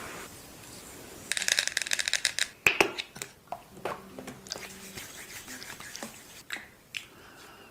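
Close-up handling sounds of makeup removal: a rapid run of crisp ticks lasting about a second, then a couple of sharp clicks and scattered light taps and scratches.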